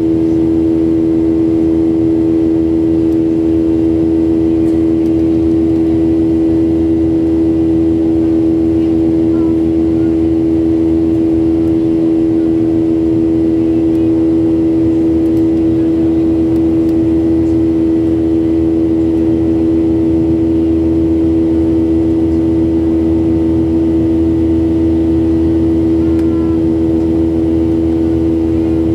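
Jet airliner cabin noise shortly after takeoff: the engines' steady drone with a strong constant hum over a low rumble, heard from inside the cabin.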